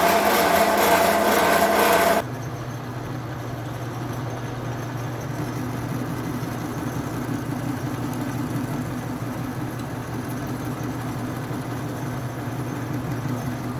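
A loud, harsh machine noise with a whining tone for about two seconds, then a sudden change to a steadier, lower hum: a metal lathe spinning a drill press motor's rotor, which the machinist judges to be badly out of balance.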